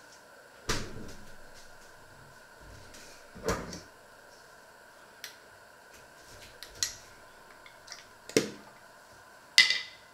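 Kitchen clatter: a run of separate sharp knocks and clacks, about six in ten seconds, from cupboards, drawers and kitchenware being handled. The loudest comes near the end.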